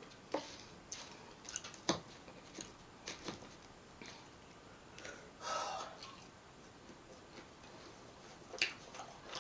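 Chewing and wet mouth clicks of someone eating a burger close to the microphone, with scattered sharp smacks and a brief breathy sound about five and a half seconds in.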